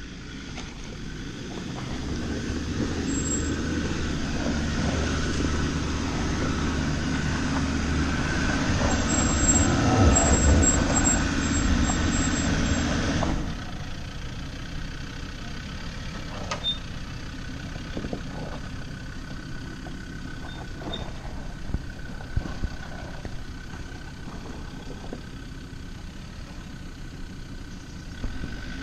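Land Rover Discovery's engine running as the 4x4 crawls over a rutted, rocky off-road track. It is louder for the first dozen or so seconds, then drops suddenly to a quieter, steady running with a few sharp knocks.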